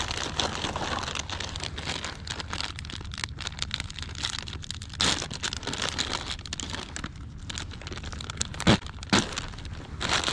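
Crinkling and rustling of a plastic packet of soft-plastic fishing baits as hands dig into it and pull it from a tackle bag, with louder flurries about halfway and near the end.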